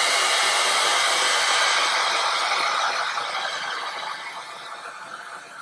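Hairdryer blowing with a steady rush of air, heating the adhesive under an iPhone X battery to soften it; the sound fades gradually over the last couple of seconds.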